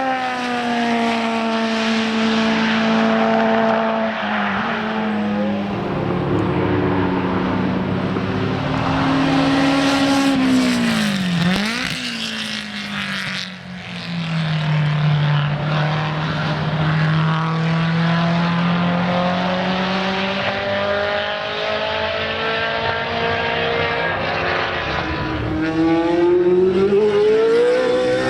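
Racing car engines running at high revs on a circuit as cars lap past. About halfway through one engine's pitch dips sharply and climbs again, and near the end an engine rises in pitch as it accelerates.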